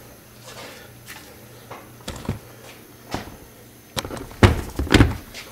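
Handling knocks and clunks at a workbench: a few light knocks, then two heavier thumps about four and a half and five seconds in.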